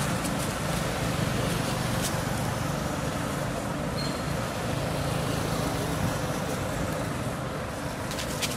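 Steady low drone of road traffic, with a couple of faint clicks.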